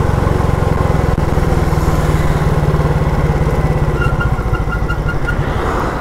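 Royal Enfield Bullet single-cylinder motorcycle engine running, its firing beat slowing toward idle near the end as the bike slows. About four seconds in comes a quick run of about seven short beeps.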